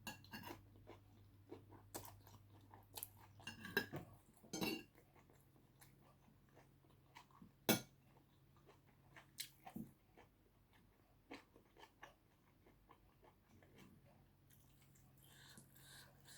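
Close-miked eating: chewing and crunching mixed with scattered clicks and clinks of utensils on a dish. The sharpest click comes about two-thirds of the way through, over a faint steady low hum.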